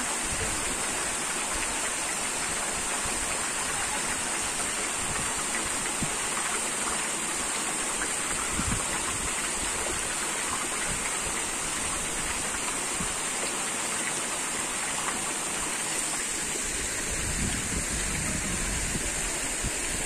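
Stream water running over rocks: a steady, even rush with no pauses.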